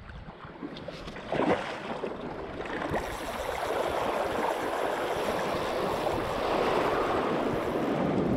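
Shallow surf washing and splashing, with a brief louder splash about a second and a half in. The wash swells after about three seconds and then stays steady.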